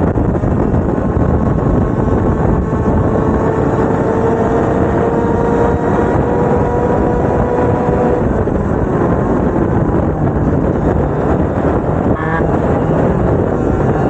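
Two-stroke racing kart engines running hard, one engine's pitch climbing steadily for several seconds as it accelerates.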